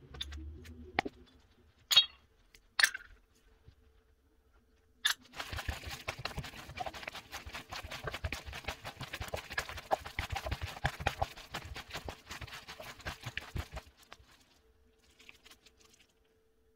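Small seasoning dishes clinking a few times against the rim of a plastic mixing bowl as they are emptied in, then a gloved hand squishing and rubbing raw frog legs through seasoning and frying powder for about eight seconds before stopping.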